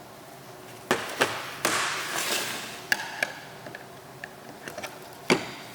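Objects being handled and set down: a series of sharp knocks and clatters, with a stretch of scraping from about one and a half to two and a half seconds in, and one loud knock near the end.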